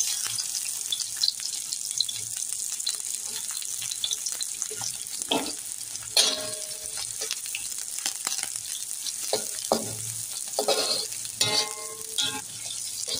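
Chopped onions sizzling in hot oil in a wok, a steady frying hiss, with the spatula knocking and scraping against the metal pan now and then as they are stirred.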